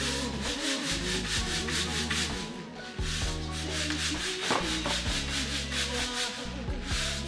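Grain swishing and rattling in a hand-shaken tray or bowl, in quick, regular strokes with a brief pause about three seconds in. Background music with a low bass line plays underneath.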